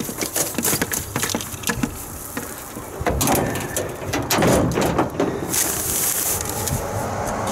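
Grassy lawn debris poured from a plastic recycle bin used as a funnel into a paper lawn bag: crackling paper and plastic handling, with a louder rush of material sliding in about three to five seconds in, then the paper bag rustling as it is handled.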